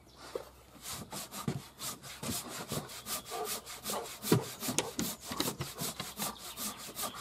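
A hand saw cutting through a small tree trunk, starting about a second in with fast, even back-and-forth strokes, about five a second.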